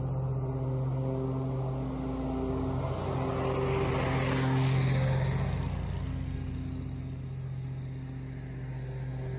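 Grasshopper 329 zero-turn mower with a Vanguard big-block V-twin engine running at a steady speed while its deck mulches dry leaves, the engine and the rush of shredded leaves growing louder as it passes close by about four to five seconds in, then fading.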